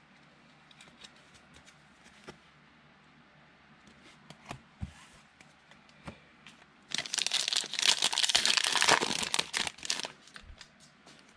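Scattered light clicks and taps of trading cards being handled, then about seven seconds in a loud burst of crinkling and tearing lasting about three seconds as a football card pack's plastic wrapper is ripped open.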